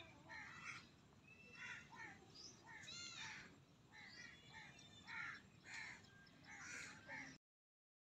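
Birds giving repeated short, harsh calls, about two a second, that cut off suddenly near the end.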